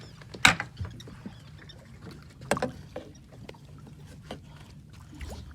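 Two sharp knocks on a fishing boat, about two seconds apart, with a few fainter clicks, over a low steady hum.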